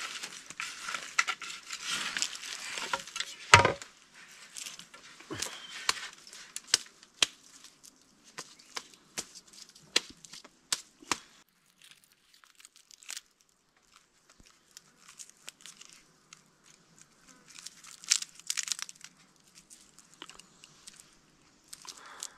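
Scraping and crackling as a stick rakes through campfire ashes and debris, with one loud knock about three and a half seconds in. Then scattered snaps and crackles as a charred cassava root is broken open and its burnt skin picked at by hand.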